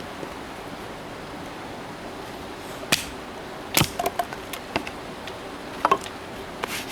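A steady hiss, then about half a dozen sharp, irregular knocks and clicks from about three seconds in, the loudest near the middle and near the end.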